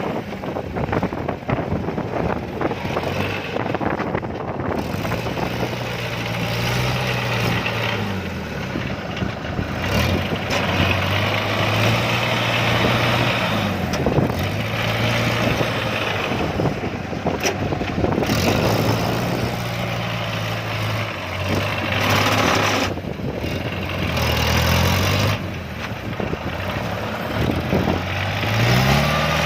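Diesel engine of a tracked farm machine working in deep mud, repeatedly revving up and easing off under heavy load, over the steady clatter of the machinery.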